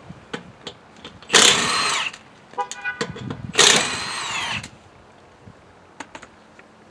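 A power tool run in two short bursts, each under a second long, its whine falling in pitch as it spins down, with a brief buzz and a few light clicks between the bursts.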